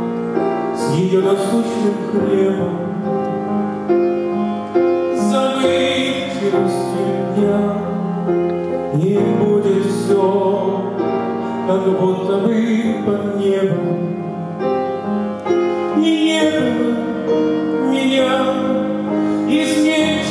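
A man singing into a microphone with grand piano accompaniment, holding long notes over the piano's chords.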